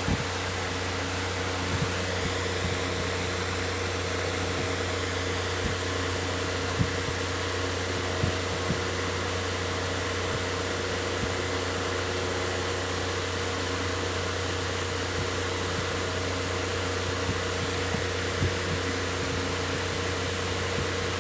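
Electric fan running steadily: an even whooshing whir over a low hum, with a few faint, irregular ticks.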